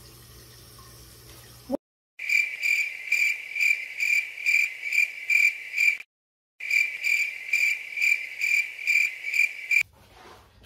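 Cricket chirping sound effect: a steady run of high chirps, about two to three a second, in two stretches separated by a brief dead-silent gap, cut in and out abruptly as an edited-in effect. Before it, a faint low room hum.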